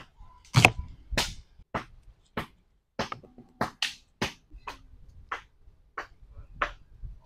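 Firewood crackling in a wood-burning camp fireplace: a string of sharp snaps and pops, roughly two a second at uneven spacing, some louder than others.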